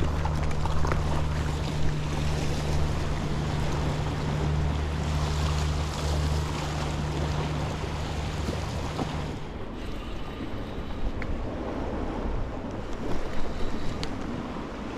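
Wind buffeting the microphone over the wash of sea waves against a rock outcrop. Under it runs a steady low engine drone, which stops abruptly about nine seconds in.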